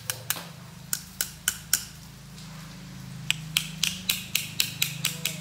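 Small washing-machine motor, just rebuilt with a local replacement bearing, running with a steady low hum and a run of sharp clicks, more frequent in the second half. It runs a little noisy, put down to the non-Japanese bearing.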